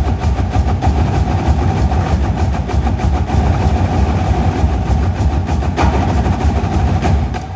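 College marching drumline playing loud and dense, with a heavy low rumble from the drums; it drops away briefly right at the end.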